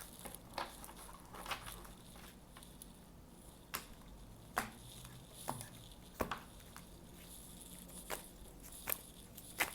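Faint, scattered taps and clicks of a tarot deck being handled and shuffled, roughly one a second.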